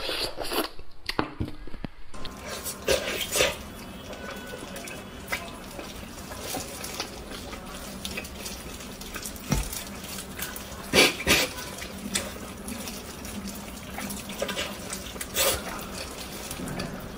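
Close-miked wet eating sounds: sucking at a roasted marrow bone, then chewing of fatty braised pork knuckle, with a few louder wet smacks.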